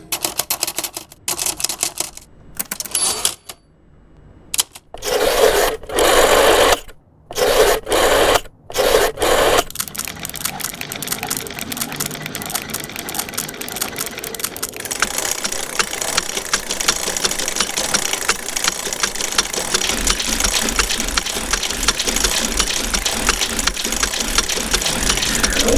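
A run of mechanical sound effects: clicks and short bursts of machinery separated by gaps for the first ten seconds or so, then a machine running with a fast, even clatter for the rest.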